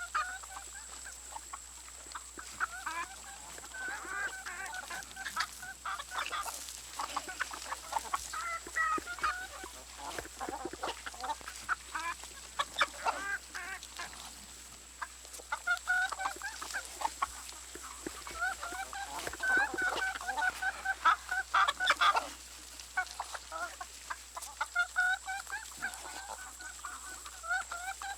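A flock of poultry calling: many short, overlapping clucks and honk-like calls.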